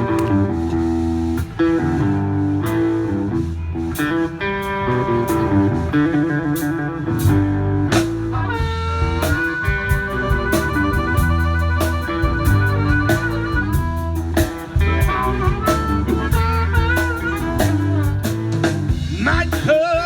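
Live electric blues band playing an instrumental intro: electric guitar over bass and drum kit, with a long bent, wavering lead note in the middle.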